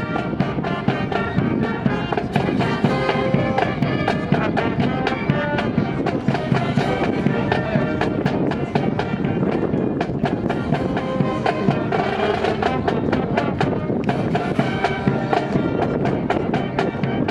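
Music playing, with many sharp clacks several times a second throughout.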